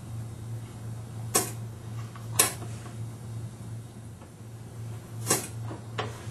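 Pneumatic hot melt shot pot dispenser firing glue shots, heard as four short, sharp bursts at uneven intervals over a steady low hum.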